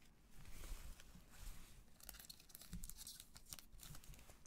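Foil wrapper of a Panini Status basketball card pack being crinkled and torn open by gloved hands: faint rustling, then a quick run of sharp crackles and rips in the second half.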